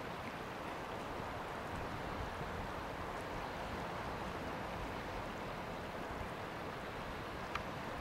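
Beehive's Indicator Geyser erupting: its jet of water and steam makes a steady, even rushing splash.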